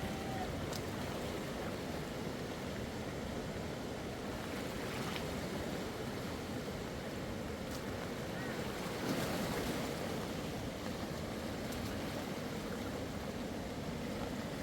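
Steady rushing of water, with a brief louder swell about nine seconds in.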